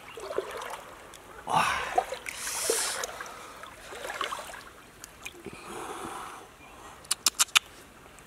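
Shallow stream water splashing and trickling as a person moves in it, with a few swishing rustles and a quick run of about five sharp clicks near the end.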